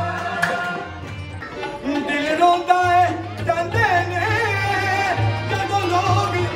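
Male singer performing a Punjabi Sufi devotional song with harmonium and hand-drum accompaniment. The drum drops out for a moment about a second and a half in, then comes back as the singing grows stronger.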